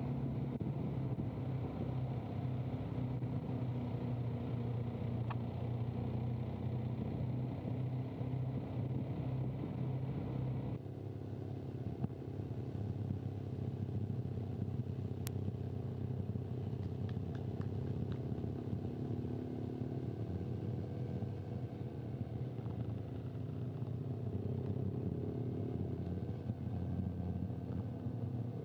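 Motorcycle engine running steadily at a low, even pace, as picked up by a camera motorbike's microphone. The sound changes abruptly about eleven seconds in, as from a switch to another microphone, and there is a single sharp click a few seconds later.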